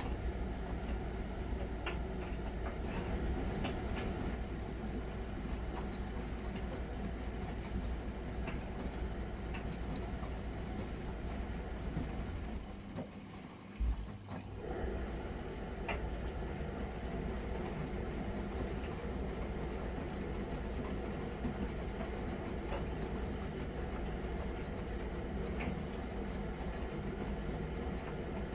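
Miele Novotronic W921 washing machine running through its wash cycle, with a steady sound of water filling and sloshing over a low hum. About thirteen seconds in, the sound briefly drops away and there is a single click before it starts again.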